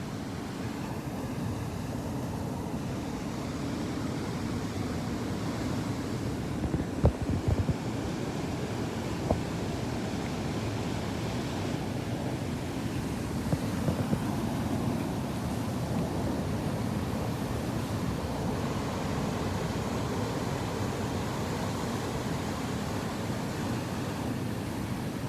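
Sea waves washing onto the shore in a steady rushing noise, with wind buffeting the microphone and a few brief thumps.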